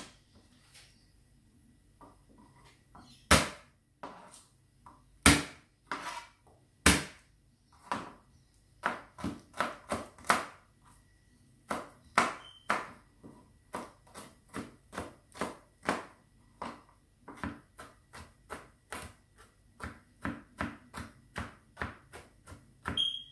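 Kitchen knife chopping on a plastic cutting board: irregular knocks with a few loud strikes in the first several seconds, then a steadier run of about two chops a second.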